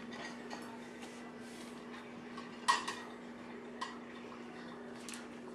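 Plates and dishes in a dishwasher rack clinking as a small dog noses and licks at them from the open door: a few sharp clinks, the loudest about three seconds in, over a steady low hum.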